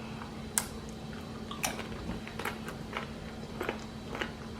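A person chewing a chicken salad sandwich close to the microphone: short, irregular wet mouth clicks and smacks, about six in all, over a steady low hum.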